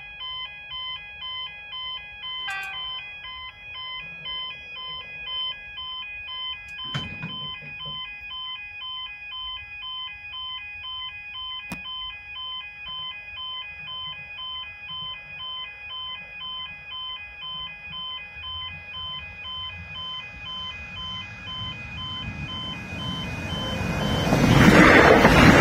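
Pedestrian railway-crossing warning bells ringing in a steady, rapidly repeated electronic chime of several tones. In the last few seconds the noise of an approaching train rises over them and becomes the loudest sound as the train arrives.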